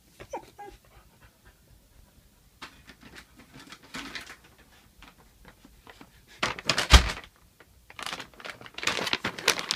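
Dog rummaging in a cardboard box and dragging out a plastic bag of bully-stick treats: rustling and crinkling plastic, with a loud thump about seven seconds in, then steady crinkling of the bag near the end, along with the dog panting.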